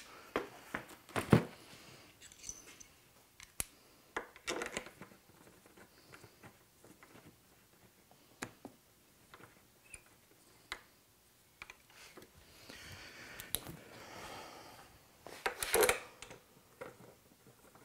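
Scattered light clicks and knocks of parts and tools being handled at a Suzuki Hayabusa motorcycle, the sharpest about a second in, with a longer stretch of soft rustling near the end.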